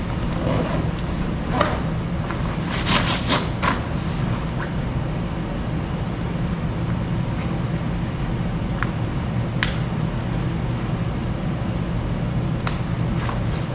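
Zipper strokes and fabric rustling from the side zippers of waterproof hunting bibs being worked up and down, with a cluster of short sharp zips about three seconds in and single ones later, over a steady low hum.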